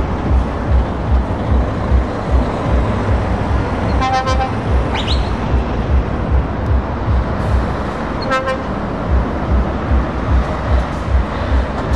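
Heavy trucks' diesel engines rumbling as they pull away, with a horn sounding twice briefly, about four seconds in and again about eight seconds in.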